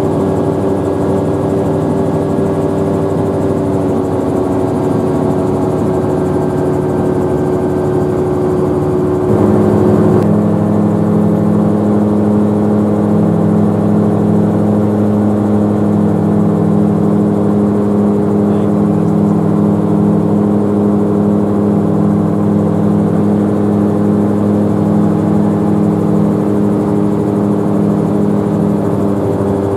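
Magni Orion M24 gyrocopter's engine and pusher propeller running at a steady cruise drone, heard inside the enclosed cabin. The tone shifts and gets a little louder about nine seconds in.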